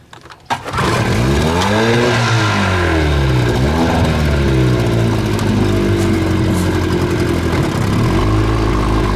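Small tiller outboard motor starting with a short clatter, catching about half a second in, then revving up and down a few times before settling into a steady run.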